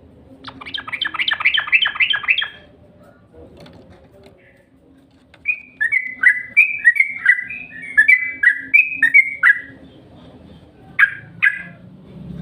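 Yellow-vented bulbul (trucukan) song: a quick chattering run of notes, then after a pause a bubbly series of warbled phrases lasting about four seconds, and two short calls near the end. This is lure song used to set caged trucukan singing.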